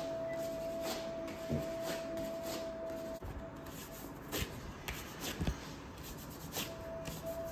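Paper wax strip being rubbed down onto a waxed leg by hand, a run of soft rubbing and rustling strokes, then ripped off the skin with a quick tearing sound between about four and five and a half seconds in. A faint steady tone sounds under it for the first three seconds.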